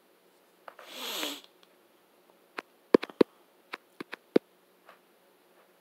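A man's breathy sigh falling in pitch about a second in, followed by a scatter of short, sharp clicks.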